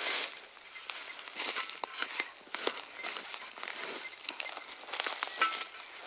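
Dry leaf litter and twigs on the forest floor rustling and crackling in an irregular run of small snaps.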